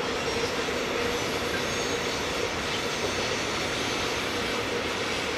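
Train running on the track: a steady rolling noise of wheels on rail, with a faint humming tone.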